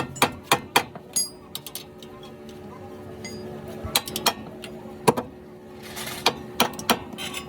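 Sharp metallic clinks and taps of hand tools on metal parts: three quick ones at the start, a few more in the middle and three near the end, over a steady low hum.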